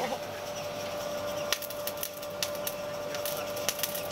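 Coal forge under forced air: the blower runs with a steady whine while the burning coal crackles with scattered sharp snaps as sparks fly.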